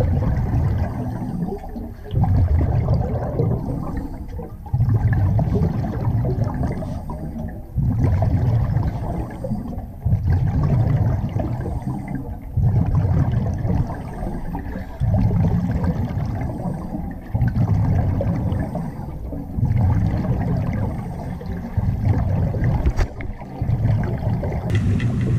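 Exhaust bubbles from a diver's helmet demand regulator, heard underwater: a deep bubbling rumble that swells with each breath, about every two and a half seconds.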